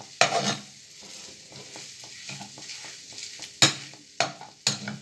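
Food sizzling as it fries in a pan while a utensil stirs it. A few sharp clacks of the utensil against the pan: one near the start and three close together near the end.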